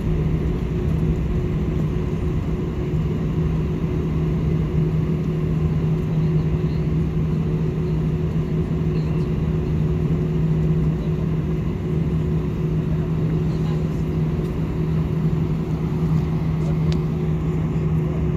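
Airliner cabin noise while taxiing onto the runway: the engines run at low, steady power, making an even hum with a steady low drone. There is no rise in pitch or loudness, so the takeoff roll has not begun.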